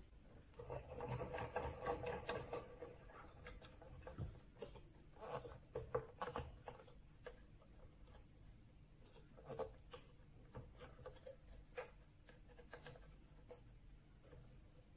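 Small F-clamps being screwed down by hand on a glue-up: faint rubbing of the turning screws and pads against the wood, with scattered small clicks and knocks.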